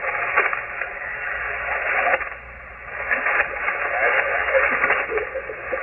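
Shortwave receiver audio on the 40-meter amateur band: loud static and band noise with a weak, garbled voice wavering underneath. The hiss comes up suddenly at the start.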